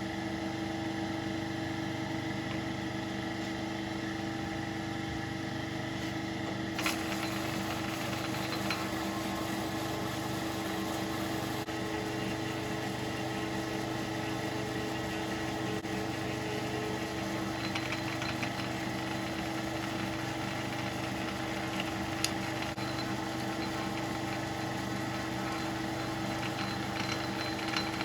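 Metal lathe running steadily with a constant whine from its drive while a reamer cuts the bore of a steel bush. A rougher cutting hiss joins in about seven seconds in, with a few light clicks later.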